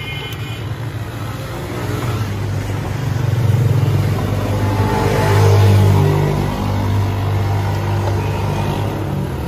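A motor vehicle engine running close by: a low rumble that swells louder twice around the middle and then eases off.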